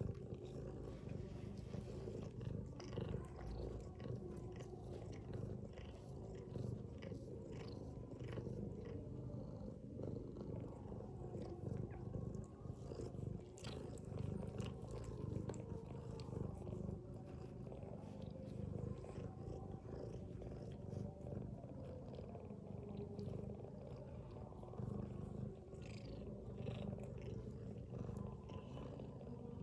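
A mother cat's steady low rumble, with scattered small clicks over it.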